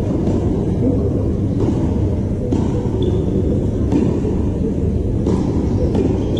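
A steady low rumble, with faint knocks of tennis balls being struck about every one to one and a half seconds during a doubles rally.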